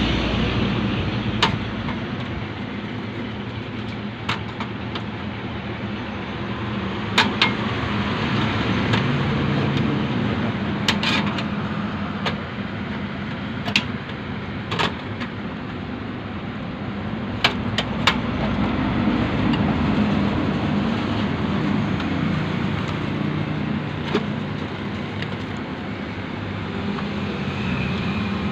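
Scattered sharp clicks and knocks of a hard drive and its cables being handled and pushed into place inside a metal desktop PC case, over steady background noise.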